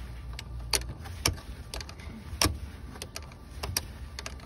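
Metal clicks of a wrench working the nut on a car battery's negative terminal clamp as it is loosened: a few sharp clicks at uneven intervals over a low background rumble.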